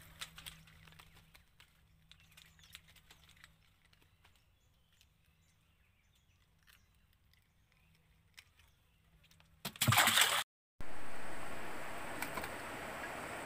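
Faint scattered clicks and taps of a small fish being handled and unhooked by hand in a wooden boat. About ten seconds in, a short loud rustling burst, a brief dropout, then a steady hiss.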